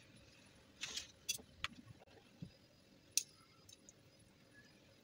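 Faint, scattered clinks and taps of a metal spoon as it scoops filling and presses it into hollowed zucchini halves on an aluminium tray: about half a dozen short clicks with quiet between them.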